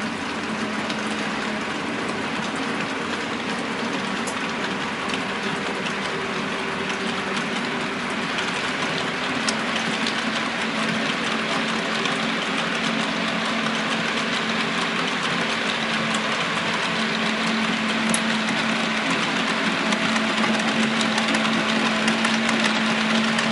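HO-scale model freight train, two diesel locomotives hauling quarry hoppers, running along the track with a steady rolling rumble and hum that grows slowly louder as it comes past.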